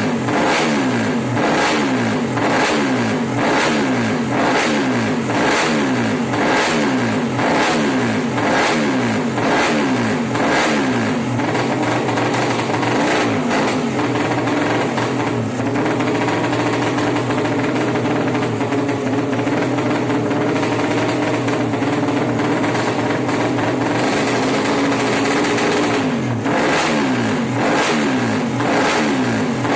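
Suzuki Satria FU racing engine bored up to 200cc, revved by hand in quick throttle blips just over once a second. About halfway through it is held at a steadier speed for several seconds, and the blips return near the end.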